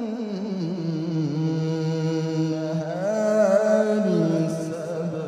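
A male qari's solo Qur'an recitation in the melodic mujawwad style: one long, drawn-out melismatic phrase, the voice sliding up and down between notes. It swells louder about three seconds in.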